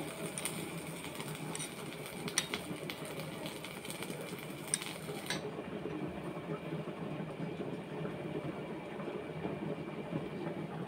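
Steady low rush of a gas stove burner flame, with a few light metal clicks in the first half. A brighter hiss over it stops about five seconds in.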